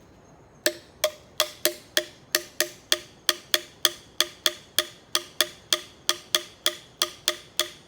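A 2-inch PVC pipe tapped with a cap in a steady rhythm, about three to four sharp knocks a second, each ringing briefly at a fixed pitch. The tapping starts about two-thirds of a second in.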